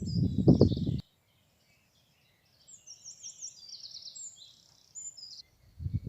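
Wind buffeting the microphone with a low rumble, which cuts off abruptly about a second in. Songbirds go on singing high-pitched fast trills and short whistles, and the wind rumble comes back near the end.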